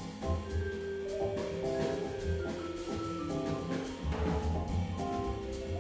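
Small jazz combo playing live. Vibraphone and keyboard hold chords that change every second or so, over upright bass notes and a drum kit keeping time on the cymbals.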